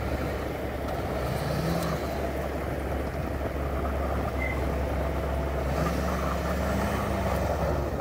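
Engines of a farm tractor and a stuck pickup truck running under load as the tractor tows the pickup through deep snow on a tow strap. A steady low drone whose pitch rises and falls twice.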